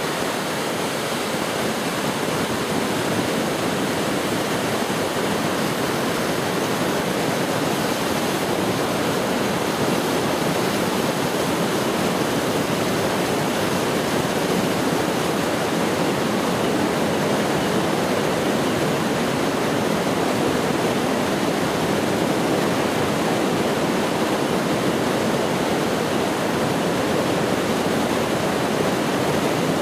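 Steady rush of fast-flowing floodwater from a swollen river.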